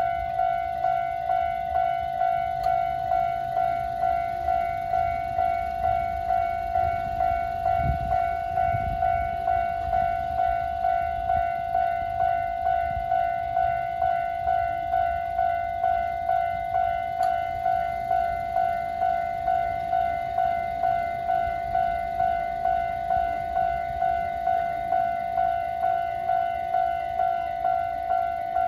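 Japanese railway level-crossing alarm sounding: an electronic bell that repeats a single ding at a steady, even rhythm. A low rumble runs beneath it, strongest about eight seconds in.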